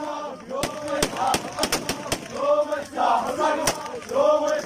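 A group of men shouting a hosa, the Iraqi tribal chant, in repeated phrases. Several single gunshots crack through the chanting at irregular moments.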